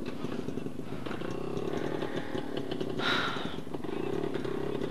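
Motorcycle engine running steadily, with a brief louder burst about three seconds in.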